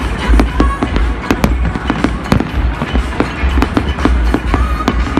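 Aerial fireworks bursting: many sharp cracks and bangs in quick, irregular succession over a low rumble.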